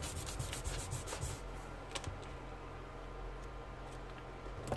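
Eraser being scrubbed quickly back and forth over brown card, rubbing out pencil lines from under an inked drawing; the strokes stop about a second and a half in, leaving a few faint clicks.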